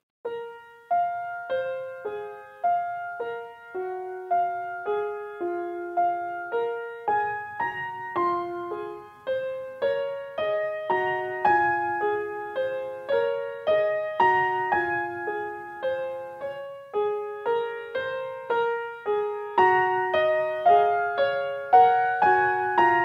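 Background piano music: a slow melody of single notes that start sharp and fade, with a lower accompaniment joining about a third of the way in.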